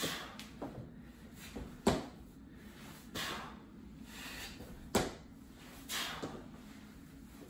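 Feet landing hard on a hardwood floor during explosive single-leg RDL-to-knee-drive reps: three sharp thumps a couple of seconds apart, with forceful breathy exhalations between them.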